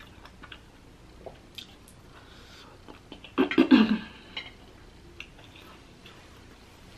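Quiet eating sounds: chewing and small clicks of a metal fork on the plate, with a short voiced sound from the eater, a hum or throat-clear, about three and a half seconds in.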